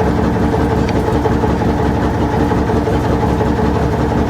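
Big diesel truck engine, a Cummins 855 Big Cam, idling steadily with an even low pulse.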